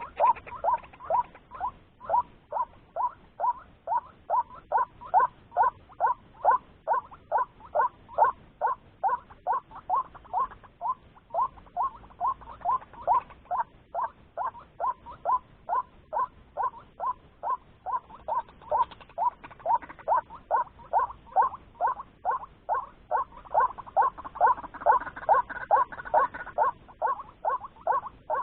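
White-breasted waterhen call, the lure sound used to draw ruak-ruak: a short croaking note repeated steadily at about two to three a second, without a break.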